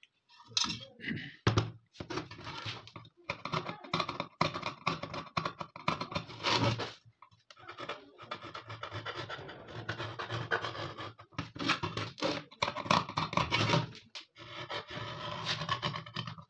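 A screwdriver tip scraping and scratching along the ribbed steel body of an AKM magazine, in rough strokes with short pauses between runs.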